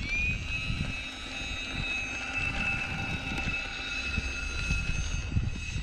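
Whine of the E-flite A-10 Thunderbolt II's twin 64mm electric ducted fans as the RC jet rolls down the runway. The pitch rises a little at the start, then holds steady.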